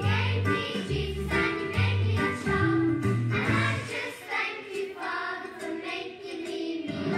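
A children's sing-along song playing: voices singing over an instrumental backing with a bass line. The bass drops out for a few seconds in the middle and comes back near the end.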